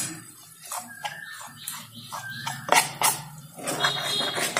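A spatula scraping and knocking against a non-stick frying pan as a dry paneer filling is stirred, in irregular clicks and scrapes that are loudest near the end. Faint high whine-like tones come and go.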